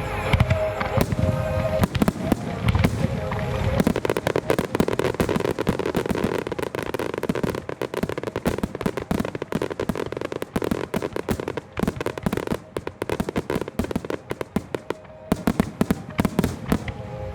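A Japanese music starmine fireworks display: a dense, rapid barrage of shells bursting and crackling, thickest from about four seconds in until near the end, over music.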